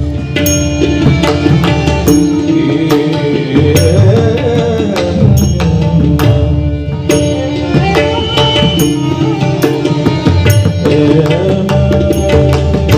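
Instrumental passage of a Marathi Warkari bhajan: tabla drumming with sharp strikes on a steady beat, under held harmonium notes that carry the melody.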